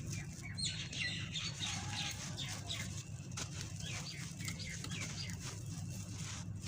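Dry sand-cement shapes crumbling and crunching, a run of gritty crackles, while small birds chirp over and over in short, quick calls.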